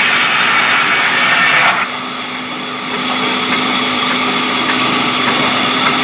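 Sawmill band saw cutting through a mahogany slab with a loud high hiss. Just under two seconds in the cutting noise stops abruptly, and the saw runs on with a steadier, quieter hum.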